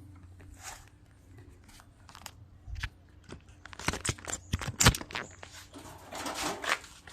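Scattered light clicks and knocks of small metal parts being handled as a lawn mower carburetor and its choke linkage are worked loose, with a couple of sharper taps near the middle and a short scraping rustle near the end.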